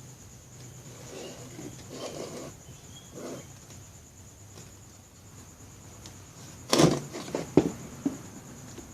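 Objects being handled on a workbench: a few soft rustles and knocks, then a sharp clatter about seven seconds in followed by three quick small knocks. A steady high-pitched tone runs underneath.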